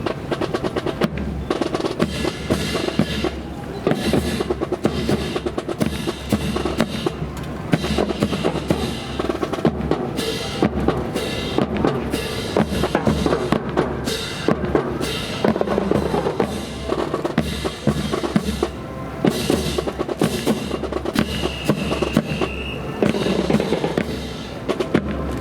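Drums playing a steady percussion rhythm, with snare and bass drum strokes.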